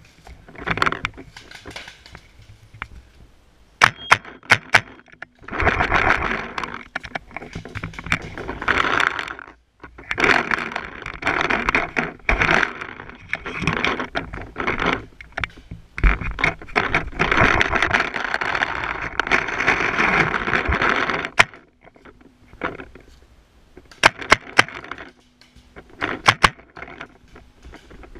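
Leaves, ferns and twigs brushing and scraping against the player's gear while pushing through dense undergrowth, in long loud stretches through the middle. A few short runs of sharp cracks come near the start and near the end.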